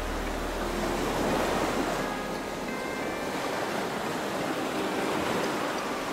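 Steady wash of ocean surf, with a few faint short tones over it.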